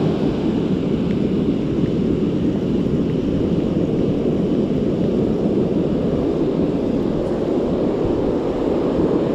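Steady rumble of wind on the microphone mixed with ocean surf, even throughout with no distinct wave crash.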